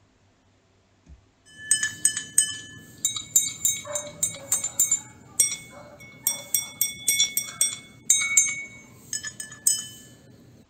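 Drinking glasses filled to different water levels struck with a wooden stick above the waterline, many quick clinks that start about a second and a half in. Each ringing note's pitch depends on which glass is hit and how much water it holds.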